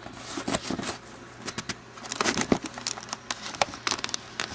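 Close handling noise: an irregular run of light clicks, taps and rustles, busiest in the second half.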